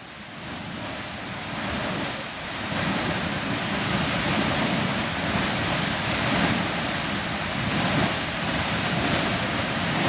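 Beehive Geyser erupting: the steady jet of water and steam from its cone gives a continuous rushing hiss. It fades in over the first couple of seconds, then holds steady and loud.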